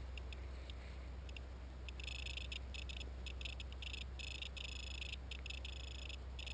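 Electrical interference buzz from the tricopter's powered-up onboard electronics, picked up by its camera's microphone: a high buzz that cuts in and out irregularly over a steady low hum, with the motors not running.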